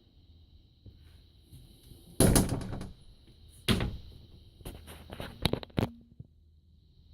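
Thumps and clicks of something being handled. The loudest is a thud about two seconds in, followed by another thud about a second and a half later and then a quick run of clicks.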